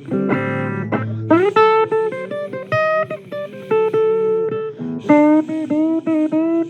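Blues guitar playing an instrumental passage between sung verses, single picked notes with a run of bent notes about five seconds in.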